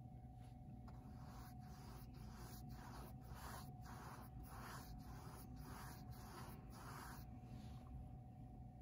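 Faint, brisk scratching of a large paintbrush stroked up and down over stretched canvas, laying on acrylic paint at about two to three strokes a second; the strokes stop about seven seconds in.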